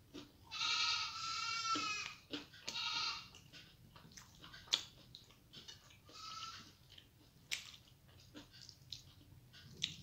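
A goat bleating three times: a long, quavering bleat near the start, a short one about two and a half seconds in, and another about six seconds in. Sharp eating clicks and mouth sounds come between the bleats.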